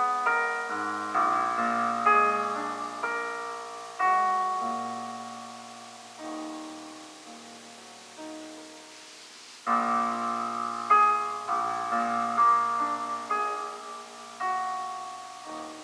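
Solo piano playing a slow classical phrase. Its notes thin out and die away in the middle, then a louder phrase enters about ten seconds in and closes with the dominant resolving to the tonic.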